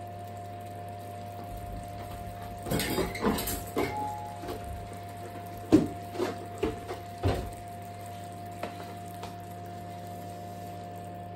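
Hot sugar syrup in a stainless steel saucepan bubbling and spitting on the leftover heat of a switched-off hob. A cluster of bubbling bursts comes a few seconds in, then a few sharp pops, the first the loudest. A steady hum runs underneath.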